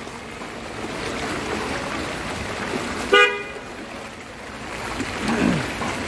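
A vehicle horn gives one short toot a little after three seconds in, over a steady hiss of rain and water on a flooded street.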